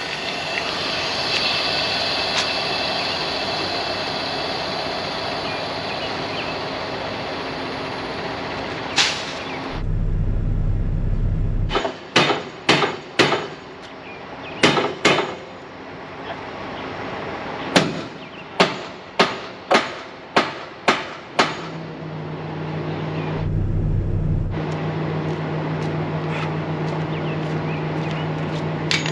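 About a dozen hammer blows on a semi-trailer's stuck tandem slider locking pins, sharp separate strikes in quick clusters, struck to free the pins so the axles can be slid. A steady hiss comes before them, and a low steady hum sets in after.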